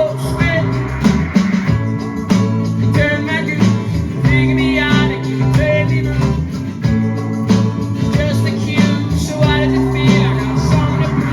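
Acoustic band playing live: strummed chords with a steady beat, and a wavering high melody line over them.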